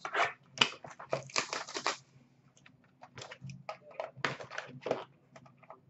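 A 2016-17 Upper Deck SP Game Used hockey card box being torn open by hand: irregular crinkling and tearing of its wrapping and cardboard, with a short pause about two seconds in.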